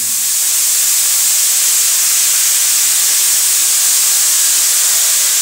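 Water sprinkled by hand into a hot karahi of frying spiced cauliflower, sizzling loudly and steadily as it flashes to steam.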